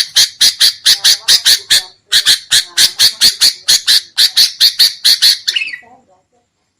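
Sooty-headed bulbul giving a rapid, agitated scolding chatter of short harsh calls, about four to five a second, with a brief break about two seconds in. The calls stop about a second before the end.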